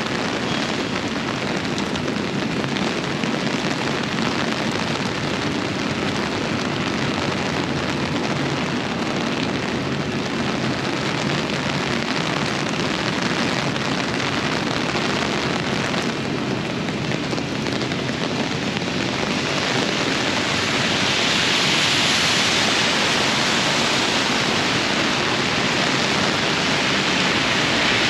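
Steady downpour of rain, a continuous hiss that grows louder and brighter about two-thirds of the way through.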